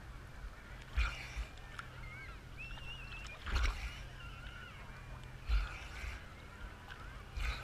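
Small waves slapping against a GoPro 3's waterproof housing at the water's surface, a splash with a low thud about every two seconds. Between the splashes, many distant voices shout and call from the crowded beach.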